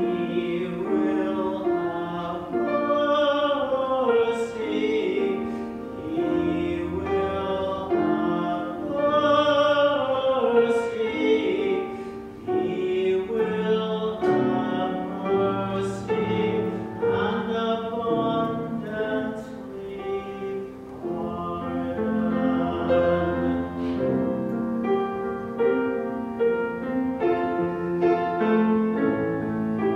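Singing with piano accompaniment, music during a church service.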